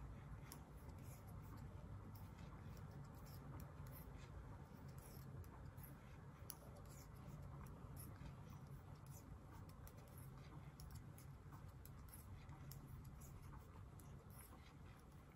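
Near silence: a steady low room hum with faint, irregular small clicks and scratches.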